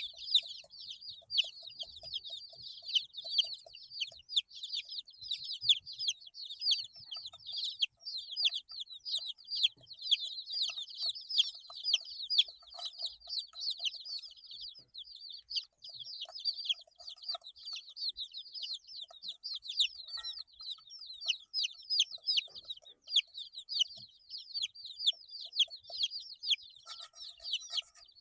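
A brood of 8-day-old domestic chicks peeping without pause: many short, high calls, each falling in pitch, overlapping from several birds at once. Near the end there is a short burst of noise.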